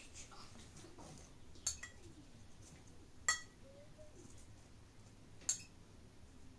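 Three sharp clinks of kitchenware, spaced a second or two apart, the middle one the loudest, against a quiet room.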